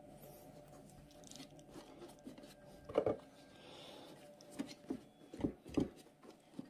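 A cotton cloth being tucked by hand over soybeans in a fermenter bowl: soft cloth rustling, a sharp knock about three seconds in, and a few lighter bumps near the end.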